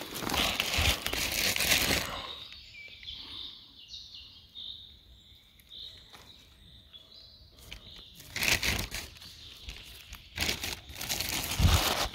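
Footsteps crunching and rustling through dry fallen leaves on the forest floor, in bursts at the start, about eight seconds in and near the end. In the quieter stretch between them a small bird gives a run of short, high chirps.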